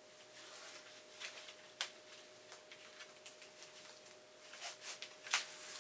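Faint rustling of a running vest's fabric and elastic cords, with a few light clicks as folded trekking poles are handled and fitted into the loops at its back. A faint steady hum runs underneath.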